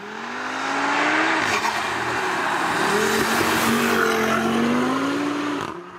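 A MK7 Golf R fitted with an Audi RS3 turbocharged five-cylinder engine accelerating past. Its engine note climbs, dips and climbs again under loud exhaust and tyre noise, then falls away near the end.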